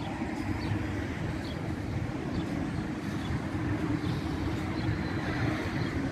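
Wind buffeting the microphone outdoors: a steady, rough rumble with a low hum under it.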